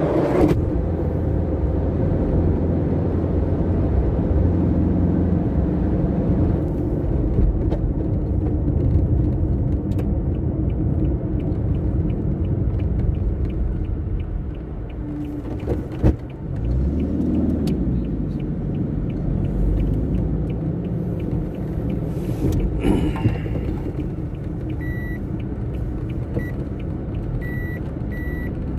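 Steady engine and road rumble of a vehicle, with a single sharp knock about halfway through. Near the end a reversing alarm starts beeping at a steady pace.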